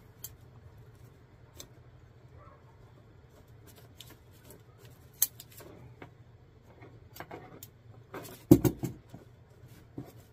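Scattered light metallic clicks and scrapes as the folding pot-support legs of a small three-burner isobutane camp stove are worked by hand, with a sharper cluster of knocks about eight and a half seconds in.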